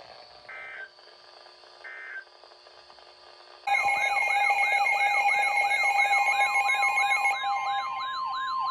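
Two short warbling data bursts of emergency alert tones, then about four seconds in a weather radio's alert alarm starts loud: a repeating sweeping chirp about three times a second over steady tones. Near the end the chirps stop and one plain steady alert tone remains.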